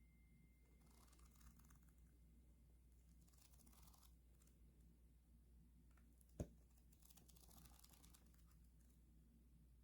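Near silence with faint rustles of tarot cards being handled, and one sharp tap about six and a half seconds in.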